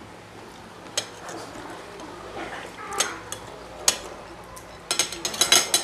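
Spoon and fork clinking against ceramic plates while eating: a few single sharp clinks a second or so apart, then a quick run of clinks near the end.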